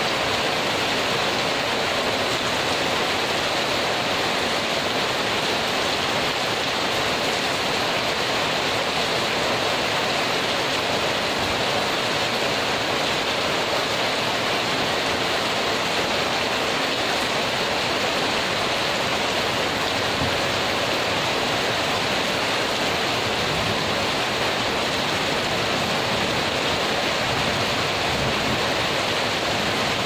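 Heavy rain falling steadily, splashing on the top of a concrete wall and a spiked iron fence: a dense, even rush of drops with no letup.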